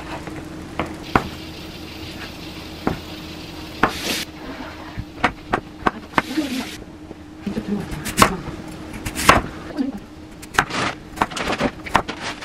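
A chef's knife chopping on a wooden cutting board, cutting through kimchi, mushrooms and potato: irregular sharp knocks of the blade on the board, sparse at first and coming several a second in the second half, over a faint steady hum.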